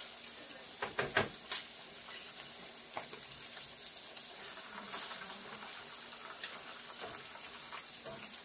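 Flour-dredged shrimp frying in a pan of hot oil: a steady sizzle, with a few sharp clicks about a second in and again near five seconds.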